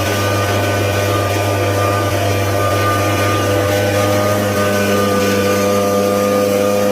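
A motor-driven machine running steadily, a constant hum with a few fixed tones over it.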